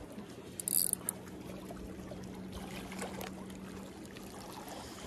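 Seawater lapping and trickling among the concrete tetrapod blocks at the water's edge, with a brief loud scratchy burst just under a second in.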